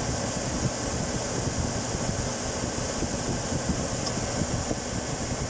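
Chevrolet Tahoe / GMC Yukon V8 idling at a standstill with the air conditioning on: a steady hum under a constant hiss of air.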